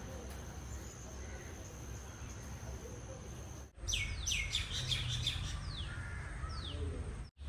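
A steady high insect drone, then after a sudden break, birds chirping: a quick burst of notes followed by several separate falling calls.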